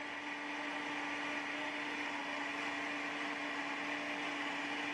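Countertop blender motor running steadily, blending a green smoothie of leafy greens, banana, pineapple and water: an even whirring hum with one constant pitch that does not change.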